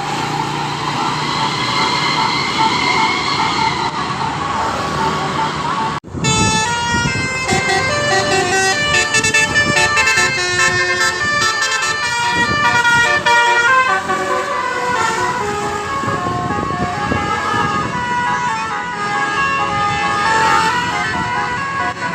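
Tour bus's roof-mounted Basuri 'telolet' multi-tone horns playing melodies over road noise. About six seconds in the sound cuts off abruptly and a new horn tune of quick, stepped notes begins.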